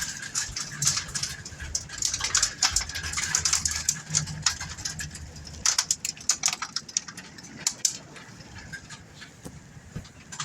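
Hailstones striking an outside door and windows: a dense, irregular patter of sharp ticks, heaviest in the first half and thinning out near the end.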